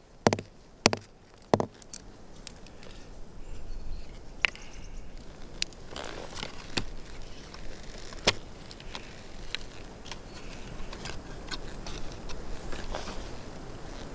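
Hands handling food and small objects on a wooden plank: three sharp taps about two-thirds of a second apart near the start, then scattered small clicks and the rustle of a paper wrapper as a chocolate bar is unwrapped.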